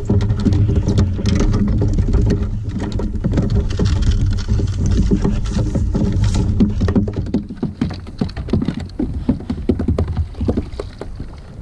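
Water lapping and splashing against the plastic hull of a Hobie fishing kayak: many small irregular ticks over a steady low rumble that eases about two-thirds of the way in.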